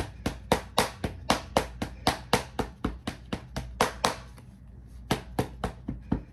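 Sharp percussive slaps struck in quick rhythm, about four a second, with a short break a little past the middle: strikes on the body during self-massage.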